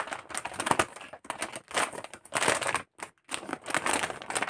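Clear plastic packaging crinkling and rustling as it is handled and a blanket is pulled out of it: quick, irregular crackles with brief pauses about a second in and about three seconds in.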